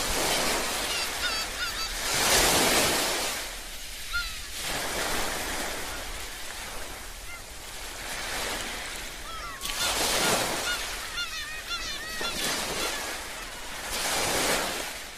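Surf washing in, swelling and fading every few seconds, with gulls calling in short runs of cries between the swells.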